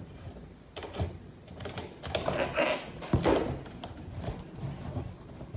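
Irregular hard plastic clicks, knocks and brief scrapes as a ring light is handled and fitted onto its stand mount.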